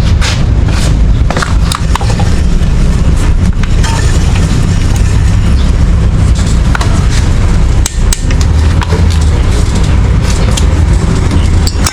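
Wind buffeting the microphone in a steady low rumble, with scattered sharp clicks and knocks of tools working on a motorcycle drive chain as a link is removed.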